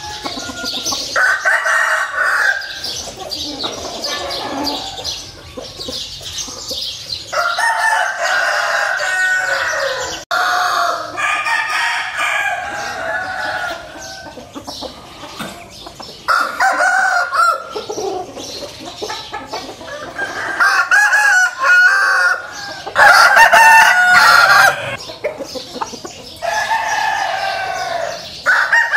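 Fighting-cock roosters crowing, one long crow after another every few seconds, with quieter clucking between the crows.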